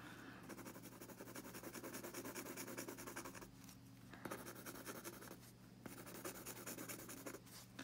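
Mechanical pencil scratching on paper in quick, short sketching strokes, with two brief pauses midway.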